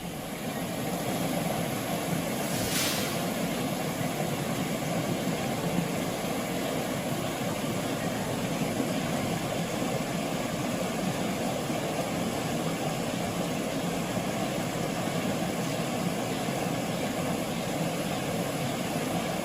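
Steady rushing of a mountain valley stream, an even, unbroken wash of water noise, with one brief sharp click about three seconds in.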